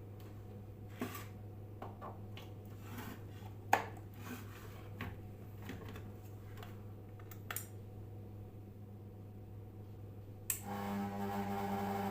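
Steady low electrical hum with scattered light clicks and taps. Near the end a click is followed by a louder buzzing hum with overtones, which grows, like a ceiling fan motor humming on inverter power.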